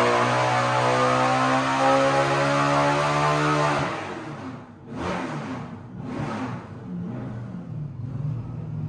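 ProCharger-supercharged LS V8 running hard on an engine dyno, its pitch steady and slowly climbing, then the throttle closes about four seconds in and the sound falls away. Two short whooshing bursts about a second apart follow, and the engine carries on at a lower, rougher run.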